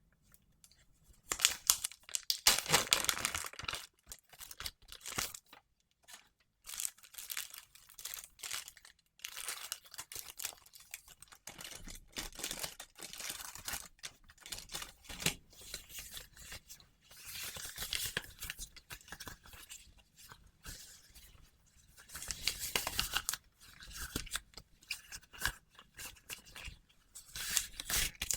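Ansell latex gloves being rubbed, stretched and worked close to the microphone, in irregular crackling bursts with short pauses.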